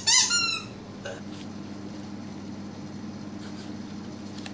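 Steady low hum of the room, with a brief high-pitched call at the very start that falls away within about half a second.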